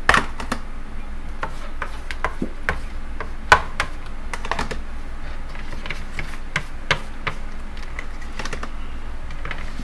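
Metal fork tapping and scraping on a metal pan and in a bowl as beaten egg is dabbed along the edges of an egg roll wrapper to seal it: irregular light clicks, one louder about three and a half seconds in, over a steady low hum.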